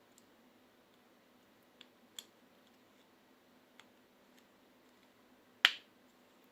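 A few faint clicks and taps, then one sharper, louder click about five and a half seconds in, over quiet room tone: small parts of a cordless hair clipper being handled during repair.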